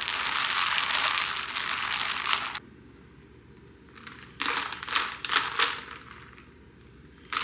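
Liquid pouring into a cup for a couple of seconds. After a pause come a few light clinks and knocks, and one more near the end.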